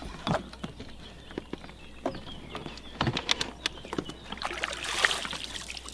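Wels catfish splashing at the side of a boat as it is gripped by the jaw and lifted out, with scattered knocks against the hull and a bigger splash about five seconds in.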